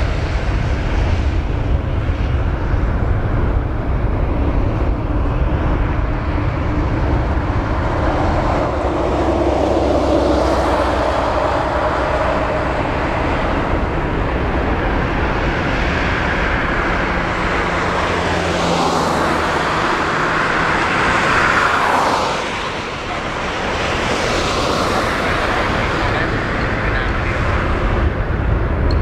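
Boeing 787-9's Rolls-Royce Trent 1000 turbofans running at taxi power as the airliner taxis and turns toward the runway: a steady jet engine noise over a heavy low rumble, dipping briefly about twenty-three seconds in.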